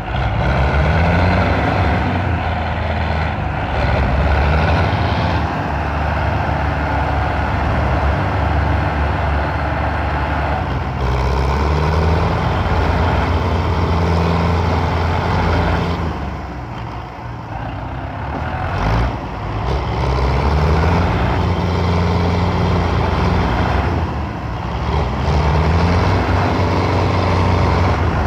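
Belarus 510 tractor's diesel engine running hard under heavy load, straining to pull a loaded sugarcane trolley out of mud. The revs climb and hold several times, easing off briefly a little past halfway and again near the end.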